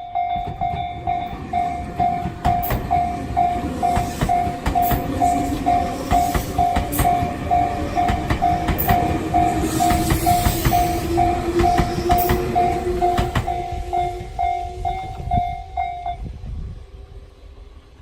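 Japanese level-crossing warning bell ringing in a steady beat about twice a second while a train passes over the crossing, its wheels clacking over the rail joints under a slowly rising hum. Near the end the bell stops and the train noise dies away.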